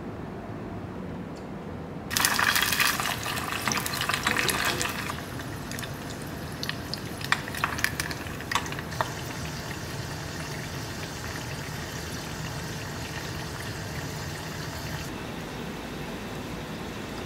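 Raw potato fries deep-frying in hot oil in a saucepan: a sudden loud burst of sizzling about two seconds in as they hit the oil, settling after a few seconds into a steady sizzle with scattered sharp pops. The sizzle drops away near the end.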